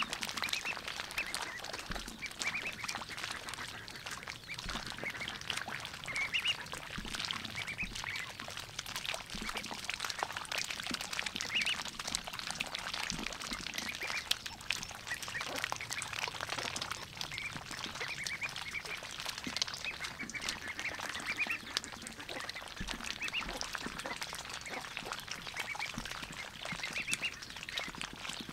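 White domestic ducklings dabbling in muddy shallow water, their bills making rapid wet clicks and slurps, with short high peeping calls every second or so.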